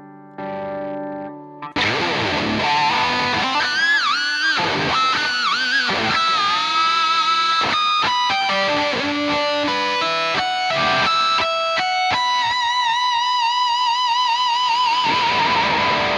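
Distorted electric guitar, a Harley Benton Fusion-III with humbuckers and a vintage-style Wilkinson tremolo. A quiet held chord gives way after about two seconds to loud lead playing, with notes dipped down and back up by the tremolo arm. Near the end a long note is held with a wide arm vibrato. The dives stay shallow, since this non-locking trem has little travel.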